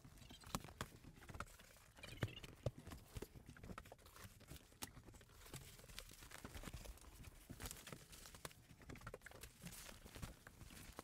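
Faint footsteps and scattered knocks and thumps: a person climbing up and down a boat's companionway steps, handling and setting down seat cushions.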